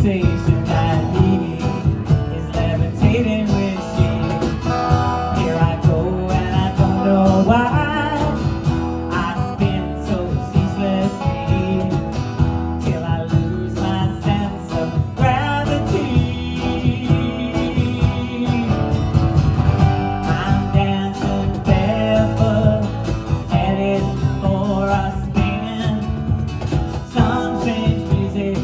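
A small live band playing: strummed acoustic guitars and an electric guitar over a cajon beat and bass.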